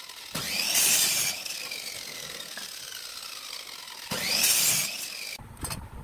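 Electric compound miter saw cutting through a wooden strip twice: each time the motor spins up and the blade shrieks through the wood, then the blade's whine falls away as it coasts down. A few light taps near the end.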